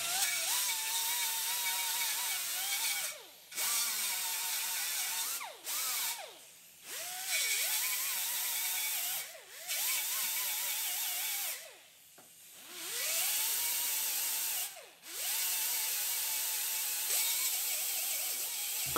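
Power grinder working the remains of spot welds on steel body panels, started and stopped about six times; its whine rises in pitch as it spins up and falls as it stops.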